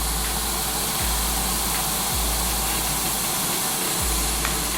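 Steady, even hiss of countertop cooking appliances running, with a few soft low thumps.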